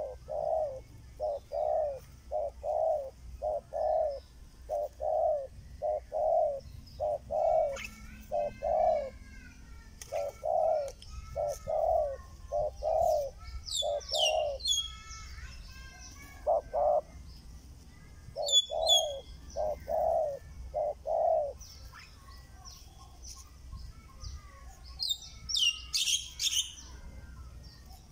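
Spotted doves cooing: a long series of low, rounded coos, mostly in pairs, that stops a little past two-thirds of the way through. Other birds give a few high chirps falling in pitch, twice in the middle and a louder burst near the end.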